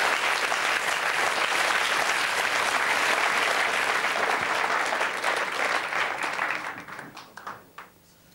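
Studio audience applauding, fading out near the end into a few last separate claps.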